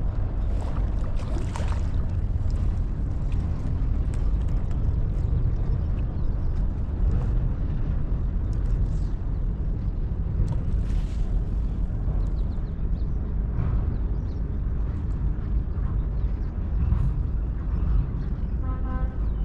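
Steady low rumble of wind buffeting the microphone, flickering without a break.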